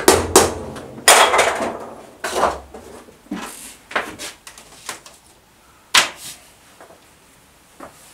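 Hammer blows on wood: two quick strikes at the start, a longer clattering knock about a second in, then sparser, lighter knocks with one sharp knock about six seconds in.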